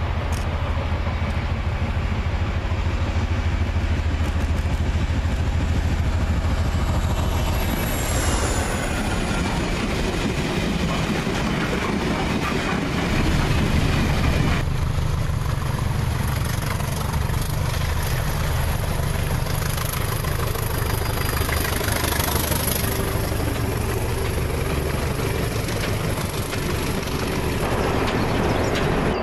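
Diesel locomotive engines working hard under power as trains approach and pass: a steady low engine drone under loud rushing noise. About halfway through it changes abruptly to a second locomotive.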